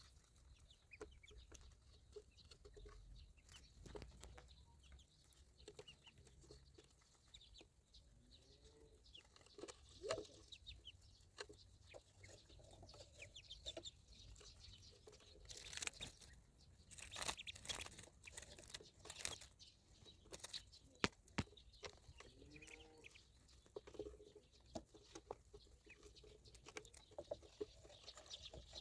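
Farmyard fowl clucking softly now and then, with many short sharp clicks and taps scattered throughout.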